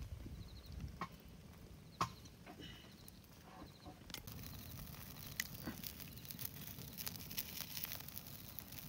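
Faint wet handling of raw chicken intestines in a plastic bowl of water, with three sharp clicks about a second apart near the start. From about halfway there is a faint, steady crackle of fine ticks.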